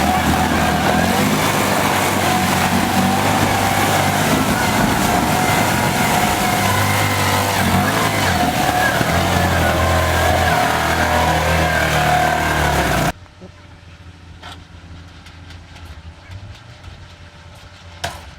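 A heavy machine's engine running loud and steady, with a held whine over a low rumble. It stops abruptly about thirteen seconds in, leaving a much quieter background with a few sharp clicks.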